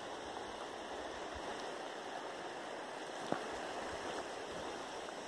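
Small waves lapping steadily on a pebbly lakeshore, an even rushing wash, with one faint click about three seconds in.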